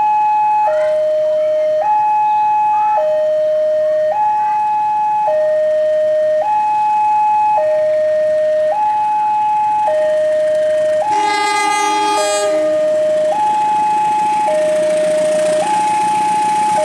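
Level-crossing warning alarm sounding a steady two-tone signal, alternating between a higher and a lower pitch about once a second. About eleven seconds in, the approaching CC 201 diesel locomotive gives one horn blast of about a second and a half. The rumble of the oncoming train then grows louder toward the end.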